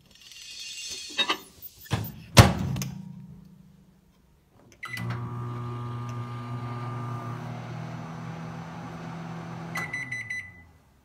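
Hamilton Beach microwave oven: a few knocks and a loud clack, then a short beep and the oven running with a steady hum for about five seconds, with a quick run of beeps near the end.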